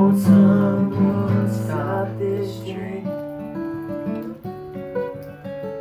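Acoustic guitar playing without vocals: a few strummed chords, then from about three seconds in a run of single plucked notes that keep getting softer as the song winds down.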